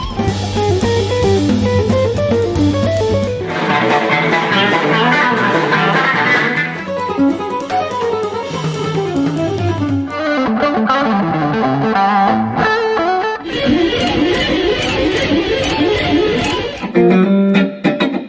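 Electric guitar playing quick runs of single notes in several short lead phrases. A low bass part sits under the first half.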